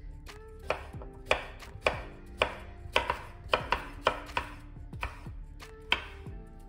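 Chef's knife chopping a courgette into cubes on a bamboo cutting board: about a dozen sharp knocks of the blade against the board, roughly two a second, stopping about a second before the end.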